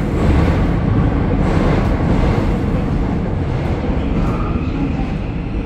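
Seoul Subway Line 9 train running underground, heard from inside the passenger car: a steady rumble of wheels on rails and running gear.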